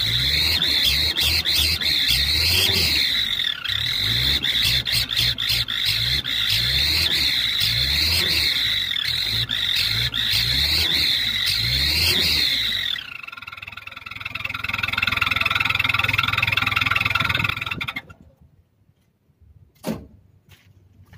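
Mitsubishi L300 pickup's engine revved over and over, with a home-made fake-turbo whistle on the tailpipe giving a high 'ngir ngir' whine that rises and falls with each rev, about every two seconds. About thirteen seconds in the whine stops and the engine runs on steadily, then the sound drops almost to silence, with a single click near the end.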